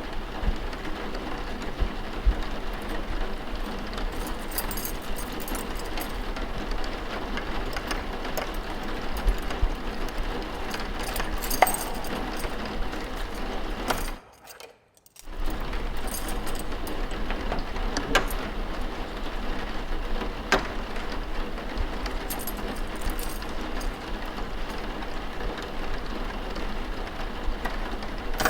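Steady rain ambience with scattered small clicks and knocks over it. The sound cuts out for about a second near the middle.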